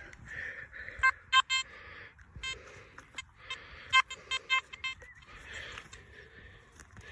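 Nokta Makro Simplex metal detector giving short target beeps, one steady pitch, in quick clusters about a second in and again around four to five seconds in, as it is swept over a freshly dug target.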